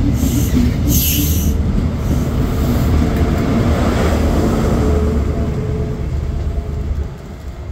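A Class 43 HST pulling out: the coaches roll past with steady rail and wheel noise and a heavy low rumble. About four seconds in, the rear power car's diesel engine passes close by with a faint whine, and the sound drops away near the end as the train moves off.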